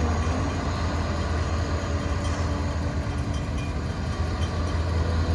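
Volvo excavator's diesel engine running steadily under load as it lifts a full bucket of earth, a deep even hum.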